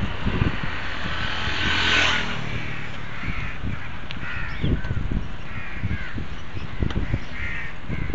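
Wind buffeting the microphone of a moving bicycle, with a brief rush of noise about two seconds in. From about three seconds on, birds give short calls every second or so.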